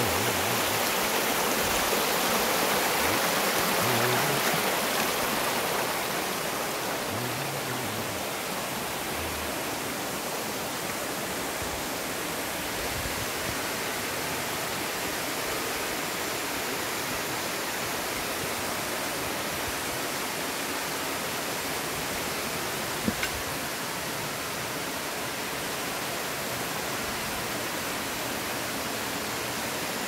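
Mountain stream water rushing and splashing down over rocks in a small waterfall, a steady rush that is louder for the first few seconds, then settles a little quieter. A single brief click about three quarters of the way through.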